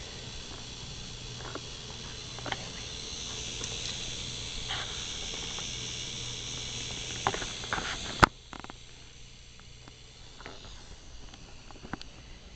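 K'nex toy roller coaster's motor-driven chain lift running with a steady whir and scattered small clicks as the two cars climb slowly. A single sharp click comes about eight seconds in, after which the running noise drops away and only faint clicking remains.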